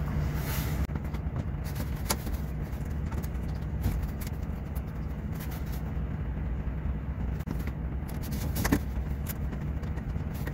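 Steady low hum of air conditioning and cooling fans in a data-center server rack, with a few scattered light clicks and knocks.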